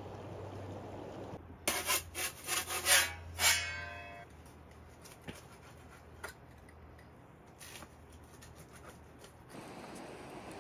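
A quick run of about six rubbing, scraping strokes, the last one ringing briefly like metal, followed by a few faint clicks.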